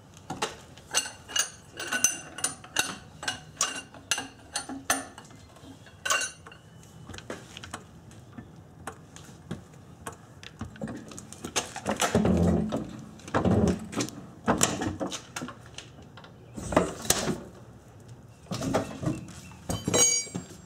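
Steel lug wrench, extended with a length of pipe, clinking and ringing against the lug nuts in a quick run of metallic taps over the first six seconds. Heavier, lower clunks and scrapes follow through the middle as the car is jacked up, with a few more ringing metal clinks near the end.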